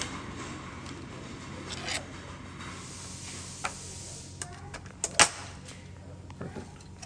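Plastic cover on a Steelcase Gesture chair's adjustment-knob housing being worked free of its two clips: scattered small plastic clicks and taps with a brief scraping hiss about three seconds in, and the sharpest snap about five seconds in.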